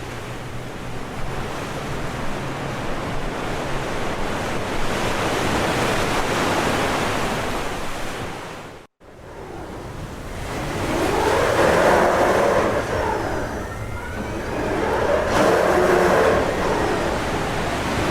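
Two outdoor city ambience recordings with a cut between them about halfway through. The first is a steady wash of noise that slowly builds. The second has louder swells that rise and fall every few seconds.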